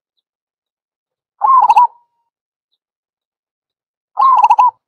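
Recorded zebra dove lure call: two short, rapid trilled coo phrases about three seconds apart, with complete silence between them.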